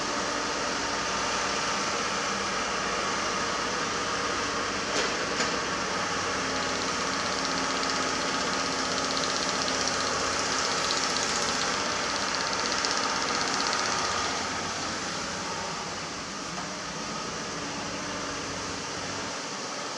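Komatsu PC200 hydraulic excavator's diesel engine running steadily as it digs and swings loads, with a hiss over it and two brief sharp knocks about five seconds in. It runs a little quieter for the last few seconds.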